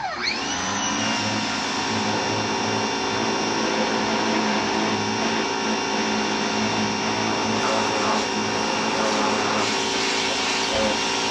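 Vacuum cleaner running steadily with a high motor whine; right at the start its pitch drops sharply and climbs back up within about a second.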